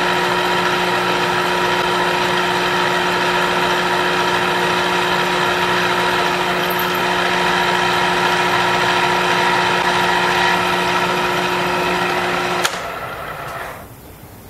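Drill press motor running steadily as it drills a hole through a tappet guide retainer plate into a Jaguar aluminium cylinder head. It is switched off with a click near the end and winds down.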